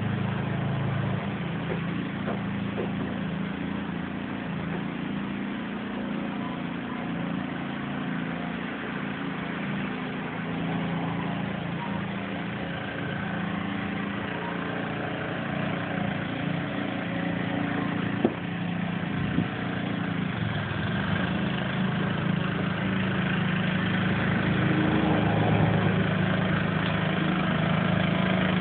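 Lawn mower engine running steadily, with a single sharp knock about 18 seconds in; it grows louder over the last few seconds.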